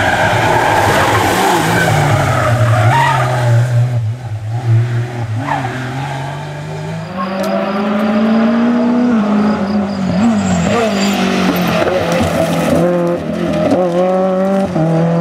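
Rally cars driven hard through corners, one after another, starting with a classic Porsche 911: engines held on the throttle, with pitch climbing about halfway through and then rising and falling with throttle and gear changes, and tyres skidding.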